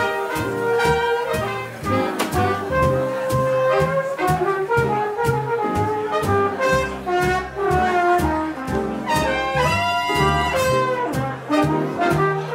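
Live swing jazz from a small band: trumpet, trombone and saxophone playing together over drums keeping a steady beat.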